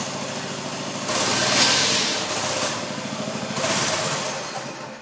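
Bar stool racer's small gas engine running, revved up twice and falling away near the end.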